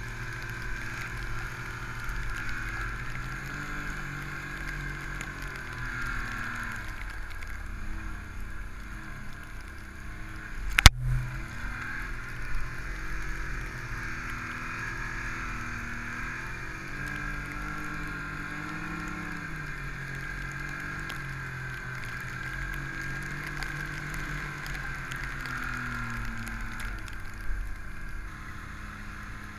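Snowmobile running through deep powder snow, its engine pitch rising and falling with the throttle over a steady hiss. A single sharp knock sounds about eleven seconds in.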